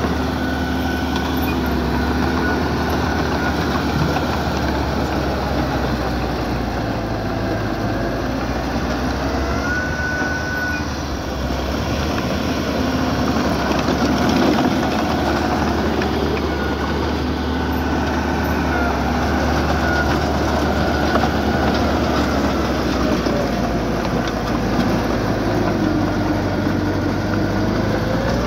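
Diesel engine of small earthmoving equipment running steadily, with faint whines coming and going over it.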